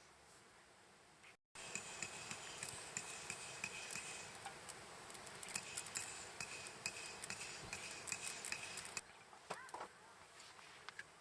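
A metal utensil clinking and scraping against a metal cooking pot, with many light taps and a faint ringing. It stops about 9 seconds in.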